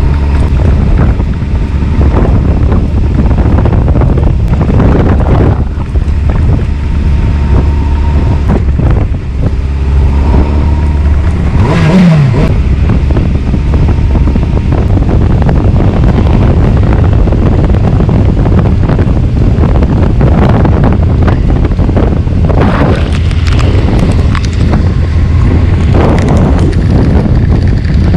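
A Honda CBF 600 motorcycle's inline-four engine running while the bike is ridden, with heavy wind noise on the microphone. About twelve seconds in, the engine note briefly falls in pitch.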